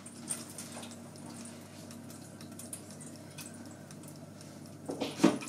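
Silvercrest SGBR 1500 D4 mini oven running on convection with the rotisserie turning: a quiet, steady fan hum with faint crackling from the roasting chicken sizzling. A brief louder sound comes near the end.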